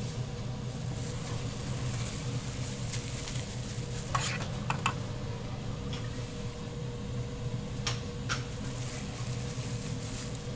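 Kitchen sounds at a heated grill: a steady equipment hum with light sizzling, broken by a few sharp clinks of a metal utensil against steel, a cluster about four seconds in and two more near eight seconds.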